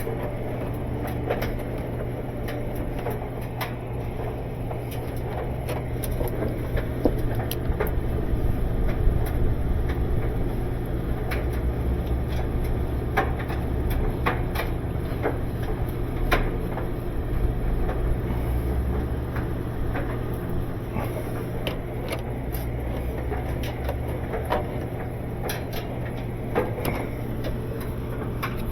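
Hand-tool work on washing machine drive parts: irregular metal clicks, knocks and scraping of pliers on the parts, over a steady low hum.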